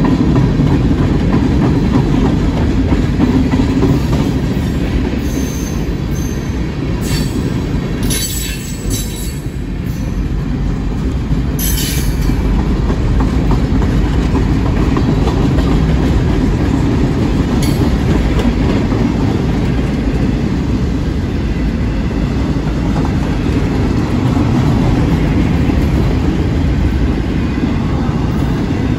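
Freight train cars rolling past close by: a steady rumble and clatter of steel wheels on the rails, with a few brief high-pitched wheel squeals between about five and twelve seconds in.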